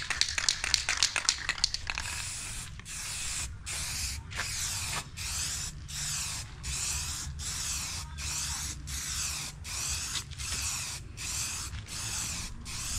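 Aerosol can of matte black spray paint spraying in repeated short bursts, about one every two-thirds of a second, after a quick run of shorter spurts at the start.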